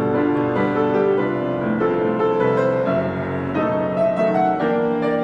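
Background piano music with slow, sustained notes.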